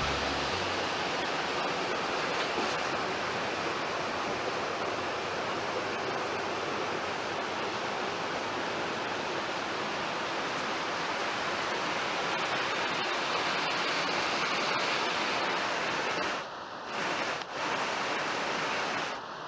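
Mountain stream rushing steadily, a continuous water noise that briefly drops away twice near the end.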